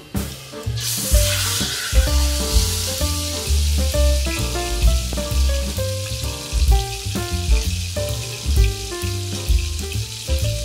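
Food frying in a hot pan: a steady sizzle that starts suddenly about a second in. Background music with a steady bass beat plays under it.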